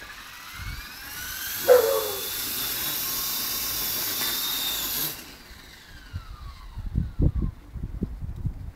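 Small electric motor and rotor of a Walkera 22E RC helicopter spinning up with a rising whine, then running steady. At about five seconds the power is cut and the whine falls away as the rotor winds down. A brief louder sound comes about two seconds in, and low knocks and handling noises follow near the end.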